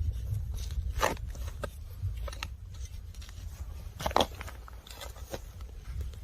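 Digging in soil with a hand digging tool: several short scrapes of the blade cutting into dirt, the loudest about a second in and about four seconds in, over a low rumble.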